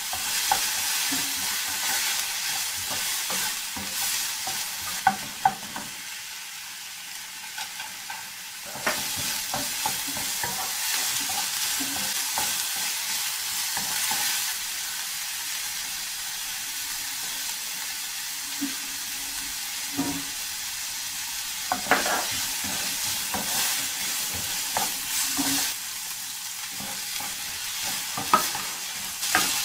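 Chopped shrimp and onion sizzling in a non-stick frying pan while a wooden spatula stirs and scrapes them, with occasional sharp knocks of the spatula against the pan.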